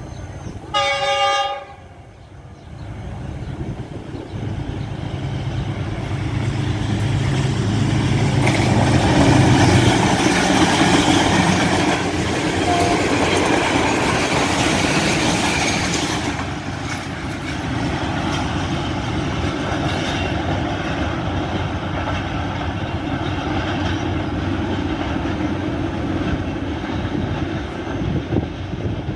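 Diesel locomotive horn sounds once, briefly, about a second in; then the locomotive and its passenger coaches run past, an engine hum and the rumble and clatter of wheels on the rails growing to their loudest around ten seconds in. From about the middle on a steadier, slightly quieter train rumble goes on.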